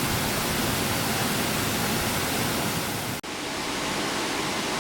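Industrial strawberry washing machine's tank of water churned by its high-pressure pump: a steady rushing, bubbling noise. About three seconds in it cuts out for an instant and resumes slightly duller.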